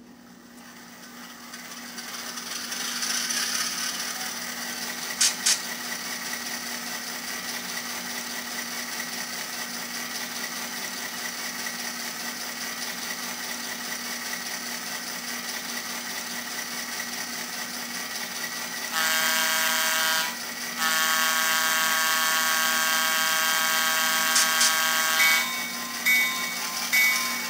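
Soundtraxx Tsunami Micro sound decoder in an N scale F7 diesel model, played through its tiny speaker: the diesel prime mover sound starts up, rising over a few seconds, and then idles steadily, with two sharp clicks a few seconds in. Later the locomotive's air horn sounds in two long blasts, and near the end short bell-like dings come in.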